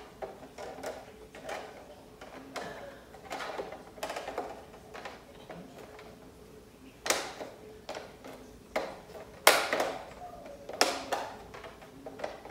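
Plastic clicks and snaps as the white diffuser filter of a Neewer ring light is pressed onto the rim of the ring, with louder snaps in the second half.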